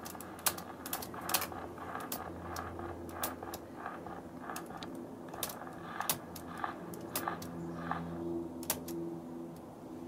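A 1907 Underwood No. 4 standard typewriter being typed on key by key, its type bars striking in a dozen or so separate clacks, irregularly spaced about a second apart. The owner says the action is slow and the type bars sometimes stick.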